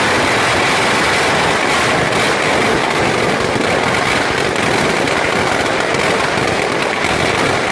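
Firecrackers packed inside a burning Ravana effigy going off in a dense, unbroken crackle of many small bangs, loud and steady.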